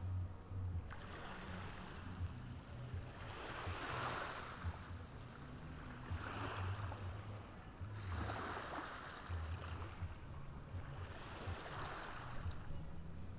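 Ocean surf washing onto a beach, each wave rising and falling away every two to three seconds, over a low steady rumble.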